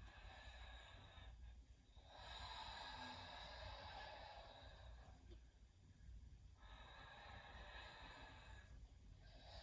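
Faint, slow human breathing: long breaths of two to three seconds each, with short pauses between them.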